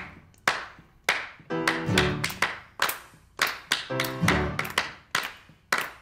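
Instrumental music: sharp claps in a repeating rhythm, each followed by short pitched chords.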